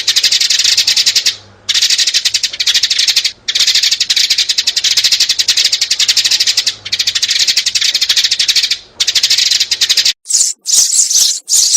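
Sparrows, adults and young, chattering in fast, continuous runs of chirps broken by short pauses every two seconds or so; about ten seconds in it changes to separate, sharper, higher chirps. It is a recorded sparrow call of the kind played as a trapping lure.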